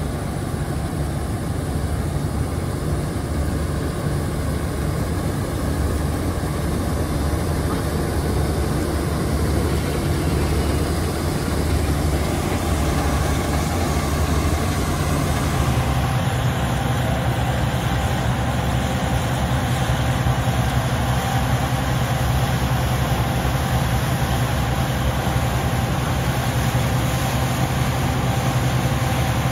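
Bizon Rekord Z058 combine harvester's diesel engine running steadily at working speed with its threshing machinery, while the unloading auger pours grain. About halfway through, the sound changes to another combine working in the field, with a steady low engine hum.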